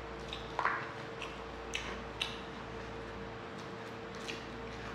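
Eating by hand: deep-fried puri being torn with the fingers and chickpea curry picked up from the plate, a few short soft crackles and small clicks. A steady faint hum runs underneath.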